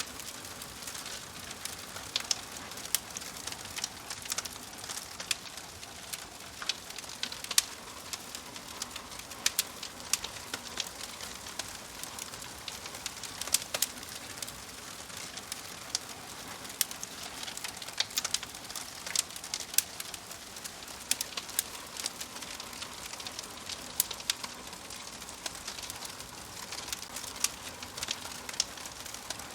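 Wood fire in a fireplace crackling, with frequent irregular sharp pops from the burning logs over a steady hiss.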